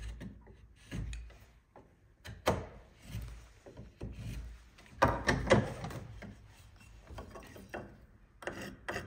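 Bevel-edge chisel pushed by hand, paring thin shavings off a softwood halving joint in several short, irregular scraping strokes, the longest cluster about five seconds in. It is taking off a little more timber to bring the joint flat.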